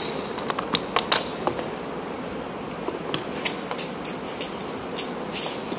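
Irregular sharp clicks and taps, thickest in the first second and a half and sparser after, over a steady room hum.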